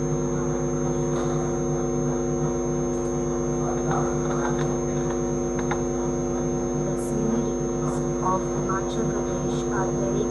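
Steady electrical mains hum with several pitched tones stacked together and a thin high whine above them, carried on the audio line of an online video call.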